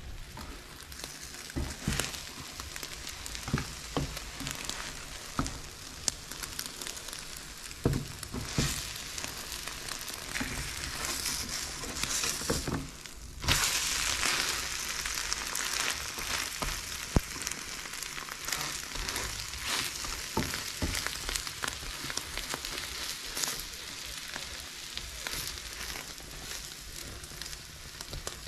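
Egg and bread frying in a nonstick pan, a steady sizzle with a plastic spatula scraping and tapping against the pan now and then. The sizzle gets louder about halfway through.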